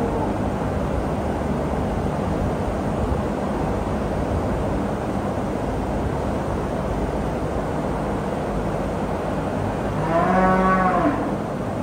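A cow moos once about ten seconds in, a single call of about a second, over a steady background noise.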